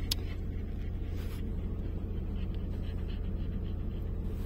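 Steady low rumble of a car's road and engine noise heard inside the cabin while driving, with a couple of sharp clicks at the start. In the second half a dog pants faintly and quickly.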